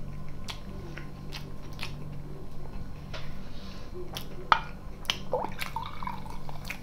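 Chewing and light clicks of cutlery on plastic food trays, then a sharp click about four and a half seconds in and fizzy soda being poured from a plastic bottle into a glass near the end, over a low steady hum.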